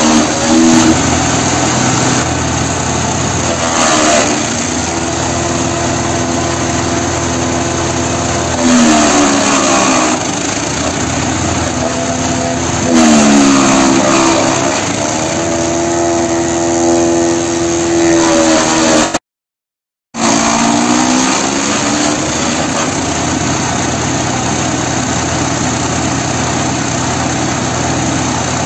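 Petrol engine of a GTS 1500E chipper-shredder running at speed, its pitch dropping and recovering every few seconds as it bogs under the load of shredding cardboard tubes, with louder chopping at each load. The sound cuts out completely for about a second two-thirds of the way through.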